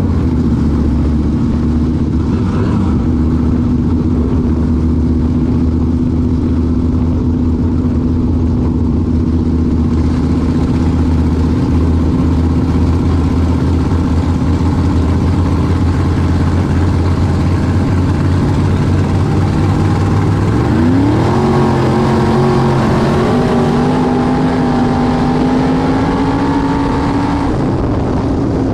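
Onboard sound of a dirt-track limited modified's freshly built V8 engine, heard from inside the open cockpit. It runs at steady, moderate revs for about twenty seconds, then revs up quickly and holds a higher, slowly climbing speed, easing off briefly near the end.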